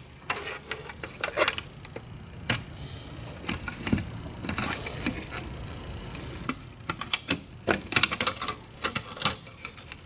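Apimaye two-piece plastic beehive frame being pried apart with a metal hive tool: a run of irregular clicks and snaps as the tight-fitting halves pop loose along the seam, coming thicker near the end.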